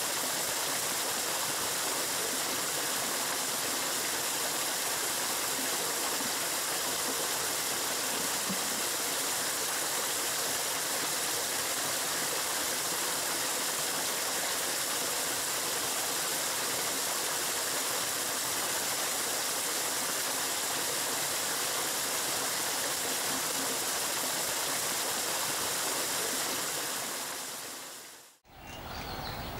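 Water gushing steadily from a pipe outlet into a pond, a constant hiss that fades out near the end.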